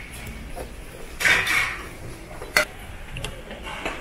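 Stainless steel bowls and utensils clattering on a steel tray as noodles are portioned out, with a short scraping clatter about a second in, a sharp clink about two and a half seconds in, then lighter ticks.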